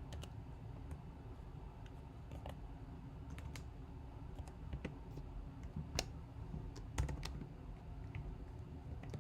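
Computer keyboard being typed on: scattered, separate key clicks a second or so apart, over a steady low background hum.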